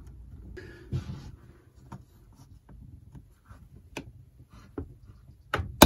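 Small metal clicks and scraping as a throttle linkage is worked into its hole on a cut-off saw's carburettor with pliers, ending in a sharp click near the end as it goes in.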